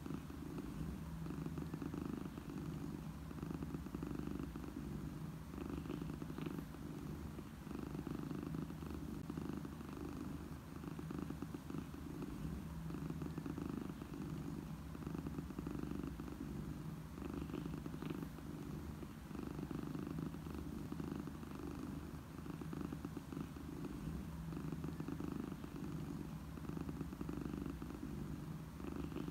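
Domestic cat purring: a low, continuous purr that dips and swells every second or two with its breathing.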